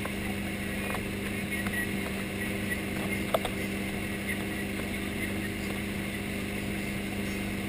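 Inboard engine of a 2012 RZ2 wakesurf boat running at steady cruising speed, a constant hum over the rushing wash of its wake. A single sharp tick about three and a half seconds in.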